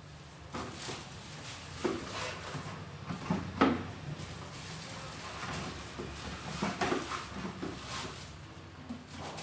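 A pink plastic dustbin and its lid being handled as a polythene rubbish bag goes in: a series of light plastic knocks and clatters, the sharpest about three and a half seconds in.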